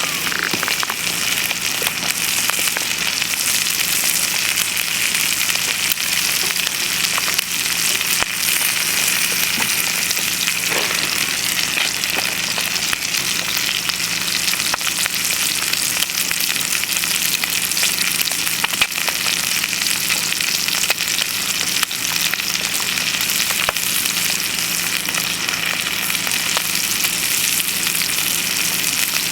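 Bacon and eggs frying in a campfire frying pan: a steady sizzle with many small crackles.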